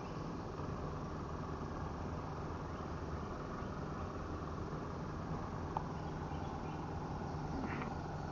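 Steady low rumble and hiss of open-air ambience, with a single faint click just under six seconds in.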